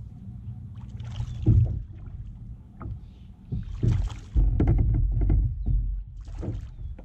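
Water splashing as a hooked bass thrashes at the surface beside a small boat: separate splashes about a second and a half in, around four seconds and again near six and a half seconds, over a steady low rumble that swells loudest in the middle.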